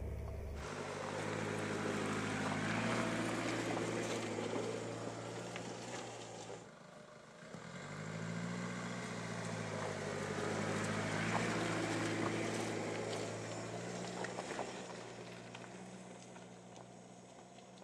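Mercedes-Benz E-Class All-Terrain driving on a rough dirt and stone forest track: a steady engine note under tyre noise on the loose surface. After a brief dip about seven seconds in, the engine rises in pitch and grows louder as the car passes, then fades as it drives away.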